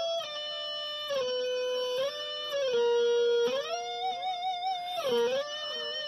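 Dean Switchblade ML electric guitar sounded with an EBow, which gives long held notes like a bowed string. The notes glide from one pitch to the next, with a wavering vibrato in the second half.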